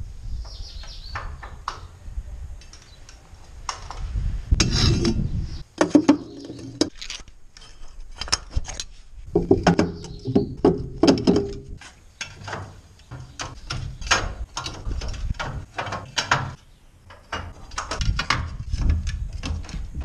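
Steel cutting knives of a Pöttinger self-loading wagon clanking and clicking as they are worked out of their spring-loaded holders in the knife bank, with irregular knocks of metal on metal.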